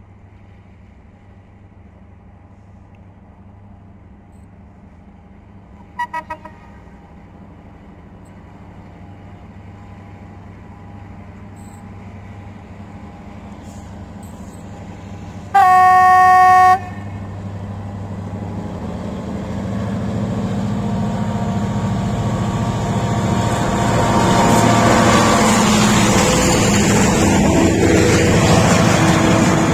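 Diesel freight locomotive approaching, its engine hum getting steadily louder; a brief faint toot of its horn about six seconds in, then one loud horn blast of about a second near the middle. In the last third the locomotive and hopper wagons pass close, wheels running loudly on the rails.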